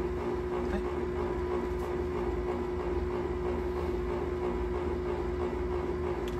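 A steady hum with a constant low tone over a low rumble, unchanging throughout.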